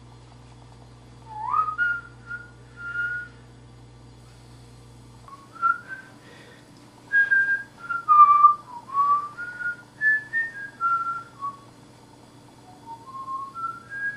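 A person whistling a meandering tune, single notes gliding up and down. A short phrase comes first, then after a pause a longer, busier run starts about five and a half seconds in.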